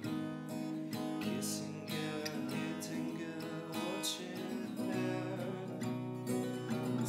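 Music played on a strummed acoustic guitar, chords sounding without a break.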